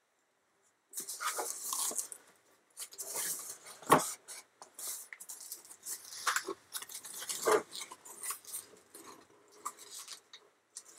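Cardboard box flaps being folded open and a sheet of plastic air-cushion packing rustling and crinkling as hands handle it, starting about a second in. There are a couple of sharper snaps, about 4 and 7.5 seconds in.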